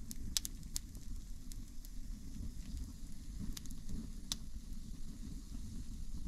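Wood campfire crackling, with a few sharp pops about half a second in and again around four seconds, over a low steady rumble.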